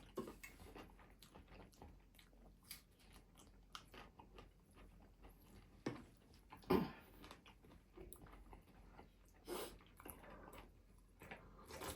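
Close-up eating sounds of someone chewing and biting chicken wings: soft wet mouth clicks throughout, with a couple of louder bites about seven and nine and a half seconds in.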